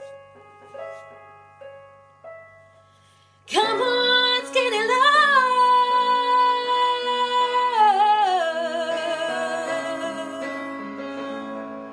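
A woman singing over piano. Quiet single piano notes come first, then about three and a half seconds in her voice enters loudly on a long held note with vibrato. The note steps down in pitch near eight seconds over sustained piano chords.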